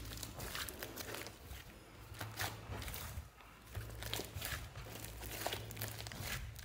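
Hands kneading and squeezing a large mass of thick slime, giving irregular sticky squishes and small crackling pops.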